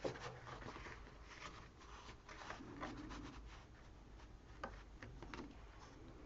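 Faint paper handling: a kraft-cardboard notebook cover rubbing and sliding against a sheet of paper as it is lined up and pressed down, with a few light taps.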